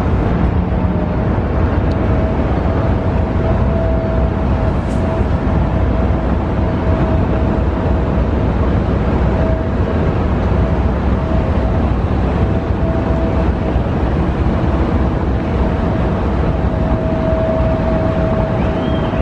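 Three DF4B diesel-electric locomotives running together in triple traction: a deep, steady engine rumble with a constant high whine over it.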